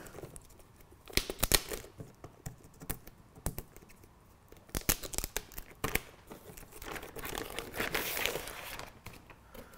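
Pink anti-static plastic bag crinkling and crackling as it is unfolded and pulled off a router. It comes in irregular bursts with sharp crackles, loudest about a second and a half in, with more bursts around five to six seconds and again around seven to eight seconds.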